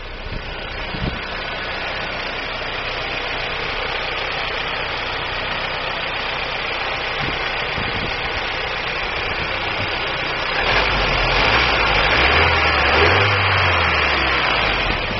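Daewoo Nubira 2.0-litre DOHC engine, which has a misfire, running at idle. About ten seconds in it gets louder, and near the end the pitch rises briefly and falls back.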